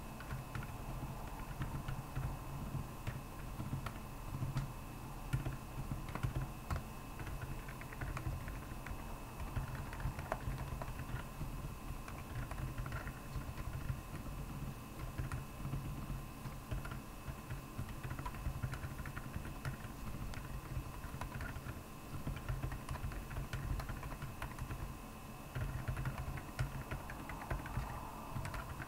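Continuous fast typing on a Royal Kludge R75 mechanical keyboard with Akko Penguin tactile silent switches: a dense run of muted, deep keystrokes, with a faint steady whine underneath.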